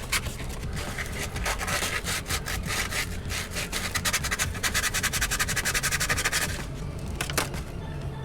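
A brake caliper slide pin being scrubbed clean by hand with an abrasive, in rapid back-and-forth scraping strokes that stop about six and a half seconds in, followed by a single click.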